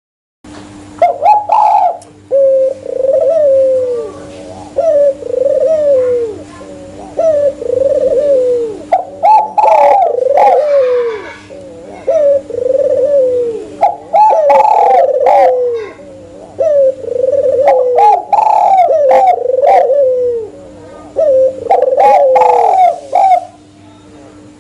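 Spotted doves and albino Barbary doves cooing in a steady series of phrases, each coo bending down in pitch, over a constant low hum with a few sharp clicks.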